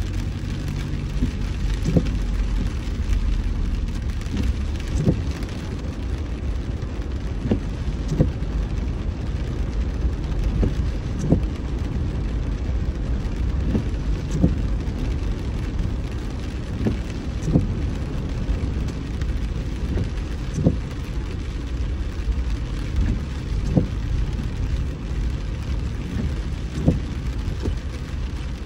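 A car driving in rain: a steady low road rumble with rain hissing on the car, and a short knock recurring about every three seconds.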